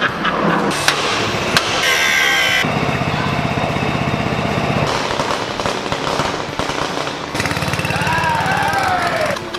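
Two stretches of rapid mechanical rattling, each about two seconds long, in a workshop.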